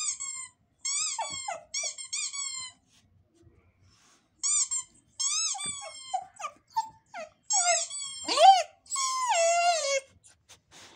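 Dog whimpering: a series of short, high-pitched squeaky cries in quick clusters, ending in a longer whine that falls in pitch about a second before the end.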